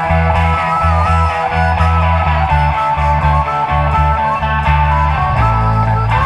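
Live electric blues band playing an instrumental passage: electric guitar, bass guitar and drum kit in a steady groove, with a harmonica holding wavering, bending lead notes over the top.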